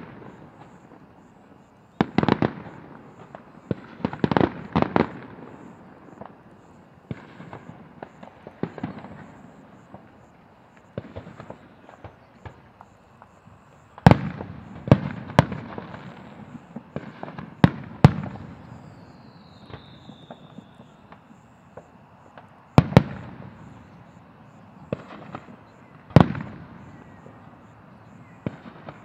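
Aerial firework shells bursting with sharp booms, a few seconds apart and sometimes in quick clusters, with crackling and rumbling in between. A brief falling whistle sounds about two-thirds of the way in.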